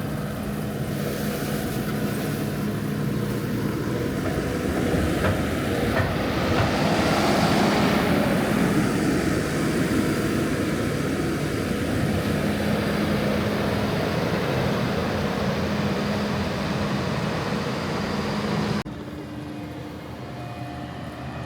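Farm vehicle engine running steadily, swelling louder around the middle. Near the end the sound cuts abruptly to a quieter engine hum.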